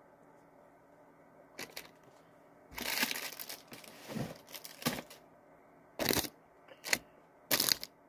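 Plastic snack wrapper crinkling in several short, irregular bursts as it is handled.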